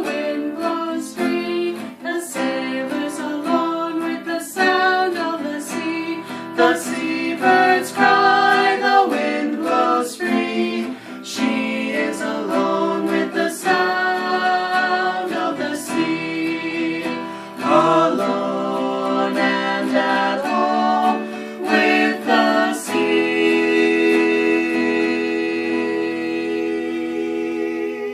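A song with plucked acoustic guitar and a woman singing. Near the end it settles into one long held chord.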